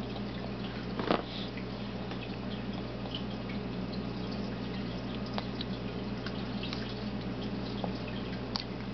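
Quiet room background with a steady low hum, broken by a few faint small clicks and smacks of a baby's mouth while eating, the clearest about a second in.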